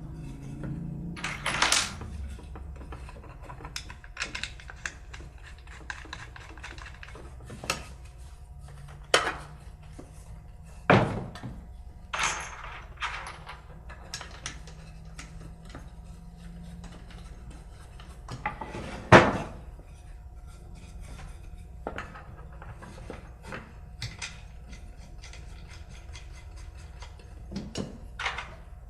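Scattered knocks and clunks of poplar bench rungs and legs being fitted together by hand, as the small bolts are started finger tight. The loudest knock comes about two-thirds of the way through.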